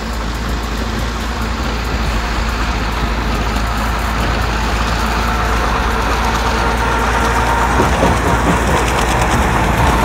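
Tractor diesel engine running under load, driving a tractor-mounted rice-straw shaver (toka machine) through paddy stubble. The steady engine-and-machinery noise grows gradually louder as the tractor comes closer.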